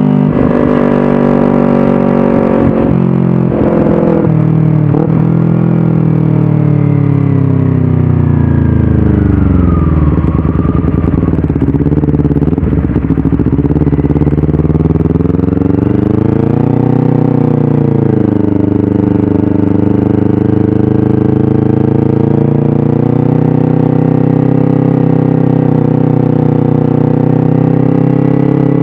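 Kawasaki Ninja 250 parallel-twin engine through an aftermarket 3Tech Tridente F22 slip-on silencer and stainless header, heard while riding. The revs fall over the first ten seconds, with a few short sharp cracks in the first few seconds, rise briefly about sixteen seconds in, then hold steady at a cruising pace.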